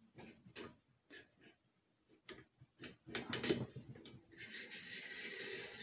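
Clicks and light knocks of parts being handled on a Kalashnikov USA KP-9 pistol as it is taken apart. These are followed by a rubbing, then about a second and a half of steady scraping.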